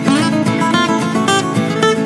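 Background music on acoustic guitar, a run of plucked and strummed notes.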